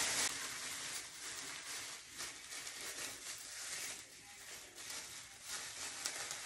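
A thin plastic bag over the hair crinkling and rustling as its handles are pulled and tied at the front. It is loudest right at the start.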